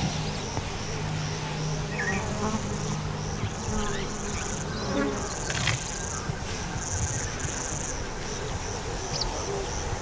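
Insects shrilling in the grass: a high buzzing drone that comes and goes in repeated bursts of about half a second to a second.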